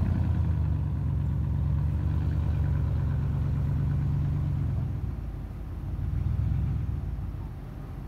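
An engine idling steadily. It drops in level about five seconds in, swells briefly, then fades again.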